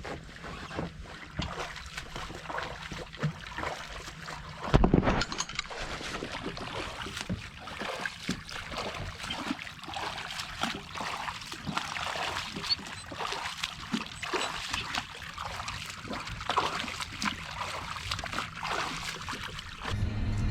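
Water splashing and slapping against a boat's hull under way, in irregular bursts, with one loud splash about five seconds in.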